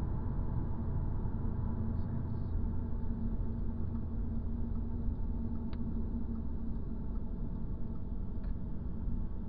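Car engine and road noise heard from inside the cabin, a steady drone holding one pitch while the car drives at an even pace, with two faint clicks in the second half.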